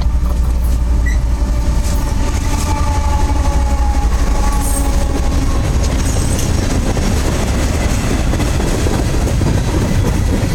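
CSX freight train rolling past at trackside: a steady, heavy rumble of wheels on rail, with faint tones sliding slowly down in pitch during the first half.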